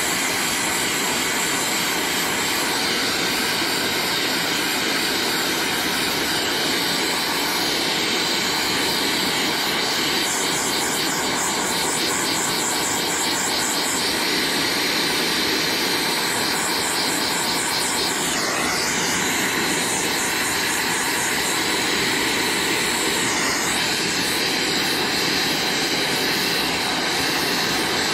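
Oxy-acetylene torch flame hissing steadily as a copper refrigerant line joint on an evaporator coil is brazed.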